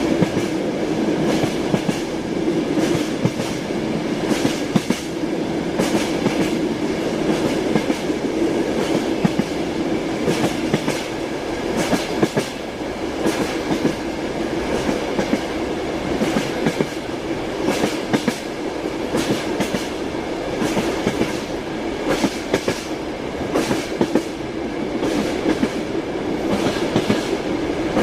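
Train running along the track: a steady rumble with the wheels' irregular clickety-clack over the rail joints.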